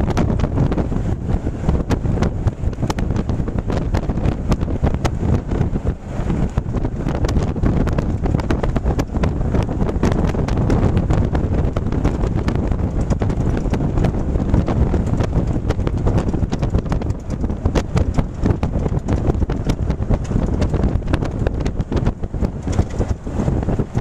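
Vehicle driving on a paved highway, a steady low rumble of road and engine noise with wind buffeting the microphone, which adds frequent crackles.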